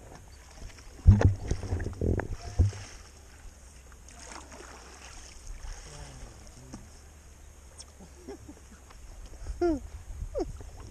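Kayak paddling on calm water, with several sharp knocks of the paddle against the plastic kayak hull or the bow-mounted camera between about one and three seconds in; after that the paddling goes on more quietly.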